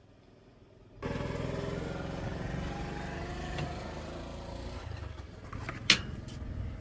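Case skid loader engine running steadily, coming in abruptly about a second in. One sharp, loud knock near the end.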